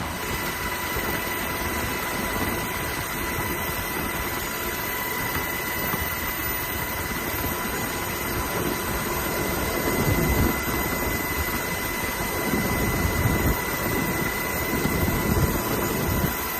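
Helicopter running: a steady high turbine whine over a rushing rumble, the low rumble swelling about ten seconds in and again near the end.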